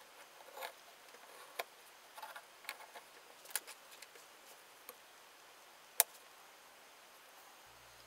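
Faint, scattered clicks and taps of small drawing tools being handled and set down on a work mat and wooden board: a metal compass, then a steel ruler and pencil, with one sharper click about six seconds in.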